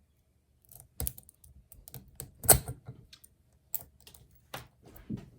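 Metallic clicks and taps of lock picks working a Master Lock Magnum M5 padlock during a speed pick, in irregular bursts with one loud clack about two and a half seconds in.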